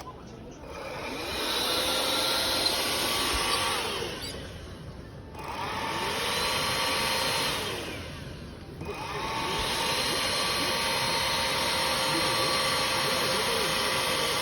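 Vacuum cleaner motor switched on three times in short runs. Each time it whines up to speed and runs steadily, and the first two runs wind down with a falling whine.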